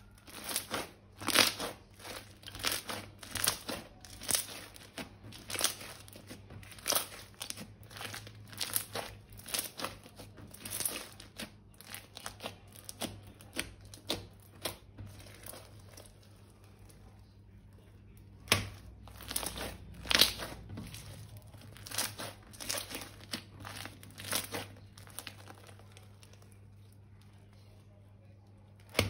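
Crinkling, crackling handling noise of slime-making materials, in short repeated bursts about one to two a second, with a couple of brief pauses.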